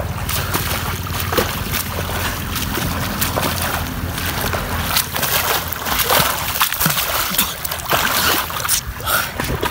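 Front-crawl swimming strokes splashing through pond water, the splashes coming close by near the end, with rain falling on the water surface.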